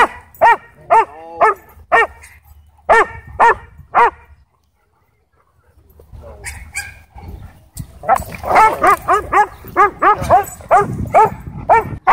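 A dog barking in short, sharp barks about every half second for some four seconds, then, after a pause, barking faster, about four barks a second, near the end.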